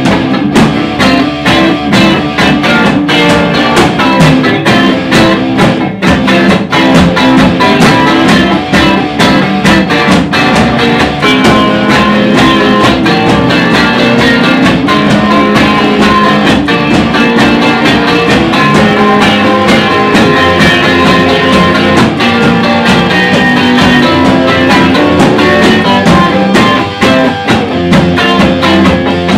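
Soul-blues instrumental played by a three-piece band: two guitars over a drum kit, with steady drum hits throughout.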